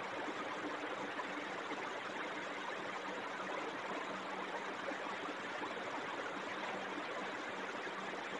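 Steady low hiss of background noise with a faint hum: room tone.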